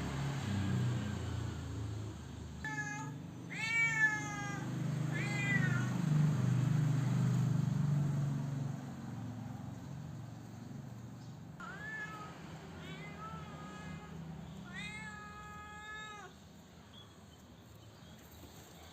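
Domestic cat meowing repeatedly, about six drawn-out meows in two groups, the last one the longest. A low steady rumble runs underneath through the first half.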